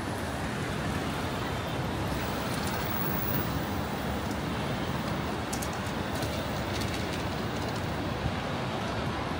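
Steady city traffic noise: an even, low rumble of passing vehicles.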